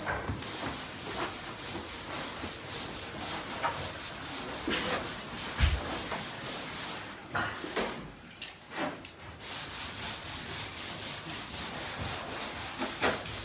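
Hand sanding or rubbing on wood: steady back-and-forth strokes, a little under four a second, with one short low thump a little before the middle.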